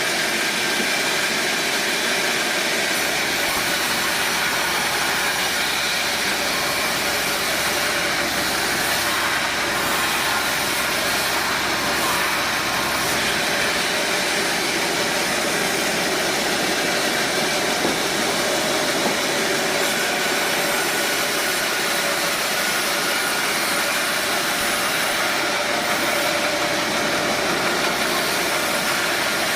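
Sawmill machinery running steadily: the saw and its drive motors making a constant mechanical noise with a few faint steady tones, no pauses or impacts.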